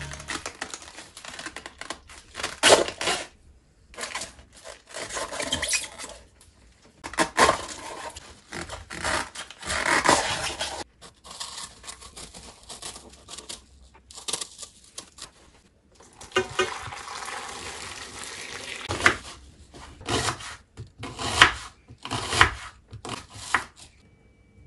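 Crisp crunching, tearing and rubbing as leaves are pulled off a head of white cabbage, and a knife shaving the thick ribs off cabbage leaves on a wooden cutting board, in irregular bursts with short pauses.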